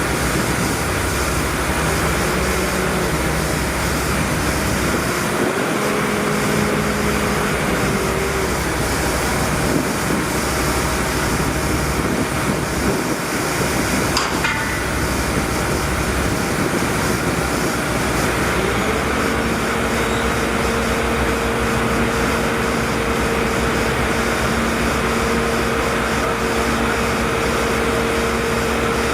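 Machinery engine running steadily, its hum changing pitch a few times and settling at a higher steady pitch about two thirds of the way through, with a single sharp knock near the middle.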